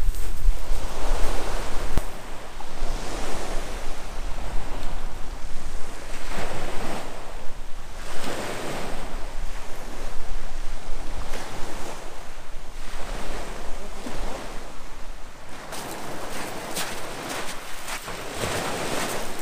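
Sea waves washing onto the shore, swelling and falling back every two to three seconds, with wind buffeting the microphone in the first couple of seconds.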